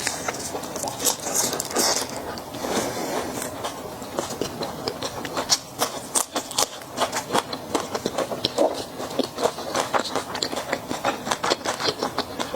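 Close-miked eating of Peking duck: chewing and crunching with many quick, crisp clicks, and some rustling and scraping in the first few seconds.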